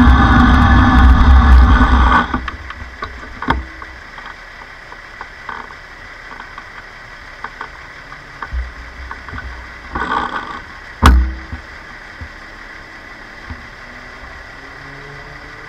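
Riding noise from an electric bike picked up by a bike-mounted action camera: loud rushing of wind and road for about two seconds, then dropping sharply to a low steady background. Scattered knocks and rattles follow, with a single sharp bang about eleven seconds in.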